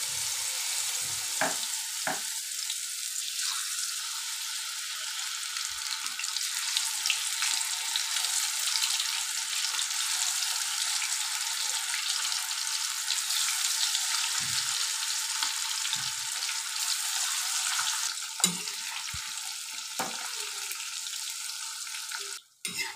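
Fish pieces in gram-flour batter deep-frying in hot oil in a kadai: a steady sizzle, with a few light knocks now and then.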